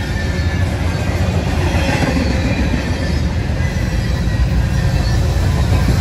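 Double-stack container well cars of a CSX intermodal freight train rolling past close by: a steady rumble of steel wheels on rail.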